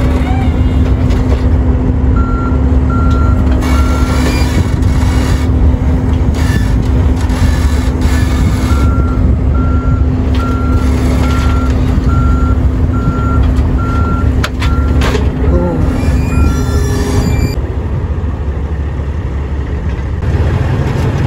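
A vehicle's reversing alarm beeping at an even pace, about one and a half beeps a second, in a short run and then a longer one, over a steady low engine rumble that eases near the end.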